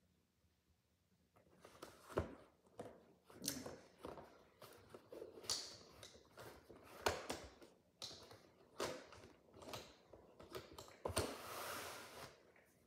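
Faint handling noises: irregular taps, clicks and short rustles starting about a second in, with a longer rustle near the end.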